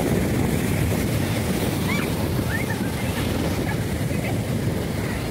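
Sea surf washing on the shore, with wind rumbling on the microphone, steady throughout. A few faint short chirps come about two to three seconds in.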